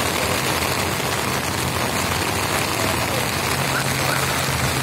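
Heavy rain pouring down in a dense, steady hiss, with a low engine hum beneath it.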